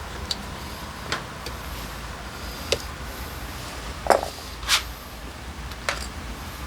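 Scattered clicks and clinks of hand tools and small metal parts being handled while a motorcycle carburetor is taken apart, about six in all. The loudest is a knock about four seconds in, followed by a short scraping rattle.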